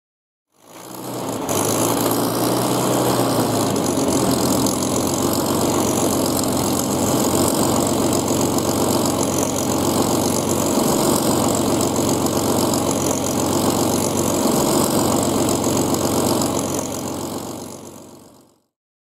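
Supermarine Spitfire's V12 piston engine running steadily, fading in at the start and fading out near the end.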